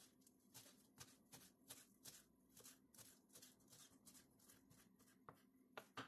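Kitchen knife chopping fresh green herbs on a wooden cutting board: soft, quick, even taps at about four a second, the strongest one near the end.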